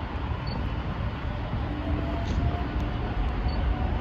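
Low, steady rumble of a distant Airbus A380 on final approach, its four Rolls-Royce Trent 900 engines, growing slightly louder as the jet nears.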